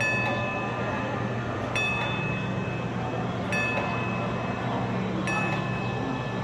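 Red Car streetcar's bell struck four times, evenly about every second and three-quarters, each strike ringing on with a clear two-note tone, over a steady low hum as the car comes along the track.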